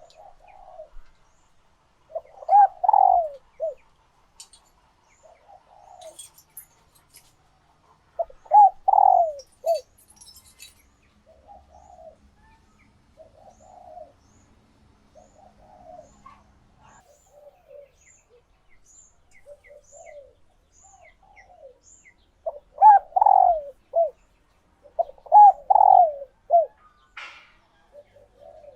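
Female spotted dove cooing, four loud phrases of a few quick coos each with softer coos between them. The calls are those of a female in laying condition, the kind that stirs male doves to coo back. A small bird's faint high chirps run through the middle.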